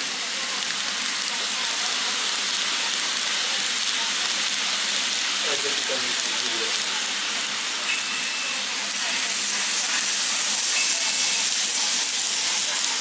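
N gauge model trains running on the layout track, a steady hissing rush of wheels and motors that grows a little louder near the end as a train passes close.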